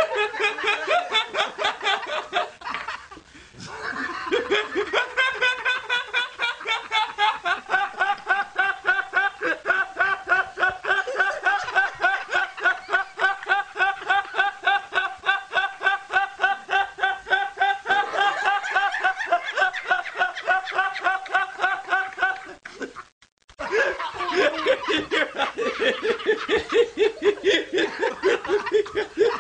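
A young man laughing helplessly in a long, rhythmic run of rapid, high-pitched ha-ha-ha pulses. It breaks briefly for a breath about three seconds in and cuts out for a moment about twenty-three seconds in.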